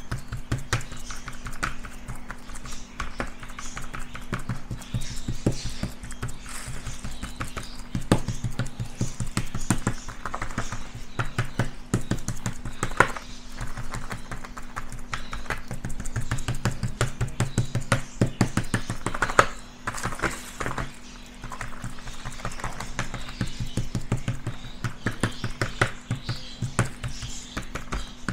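Metal spoon rapidly patting and scraping a wet shrimp-and-natto fish-food paste flat on a paper-lined metal baking tray: a quick run of soft taps, several a second, over a steady low hum.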